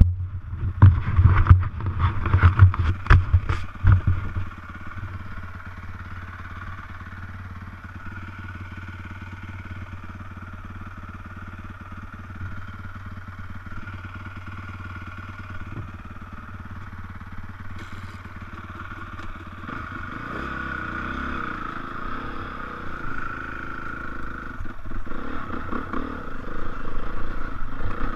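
Dirt bike engine idling steadily, then revved and pulling away, louder near the end. A run of loud knocks and rubbing in the first few seconds.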